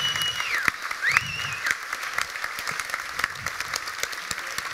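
Audience applauding. Two whistles rise, hold and fall within the first two seconds, and the clapping thins out slightly towards the end.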